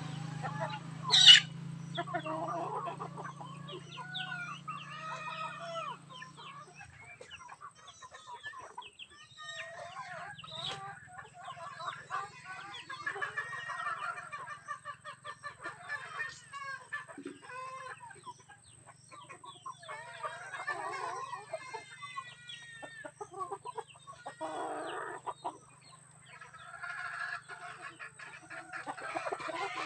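Chickens clucking and calling in a flock, with one sharp, high squawk about a second in standing out as the loudest sound. A low steady hum runs underneath.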